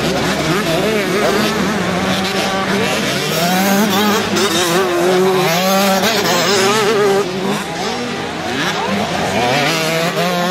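Several motocross bike engines revving as the riders race, their pitches rising and falling with each throttle change and gear shift, overlapping one another. The sound eases a little past the middle.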